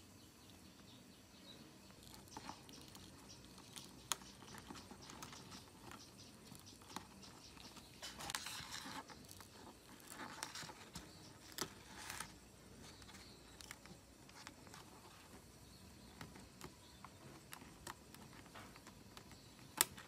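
Cracked glass of an OPPO phone's touchscreen being pried and peeled from its frame with metal tweezers: faint crackling and ticking of glass fragments, with scattered sharper clicks and a denser stretch of crackling around the middle.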